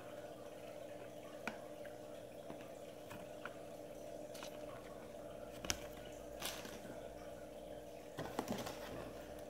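Faint, scattered clicks and light rustles of trading cards being handled on a stone countertop, with a small cluster of them near the end, over a steady low background hum.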